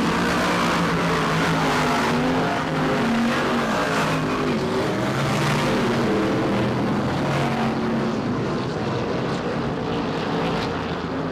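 Engines of several BriSCA Formula 2 stock cars racing on track, a loud steady mix of engine notes rising and falling in pitch as the cars lap.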